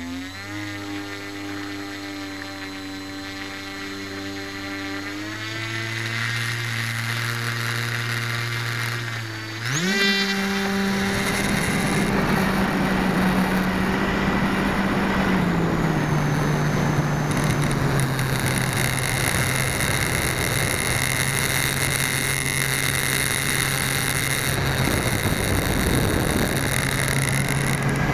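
Electric motor and propeller of a Polaris 180 RC seaplane, heard from its onboard camera. It runs at low throttle on the water, steps up a little, then revs up sharply about ten seconds in for the takeoff. It holds a steady high pitch in the climb, easing back slightly a few seconds later.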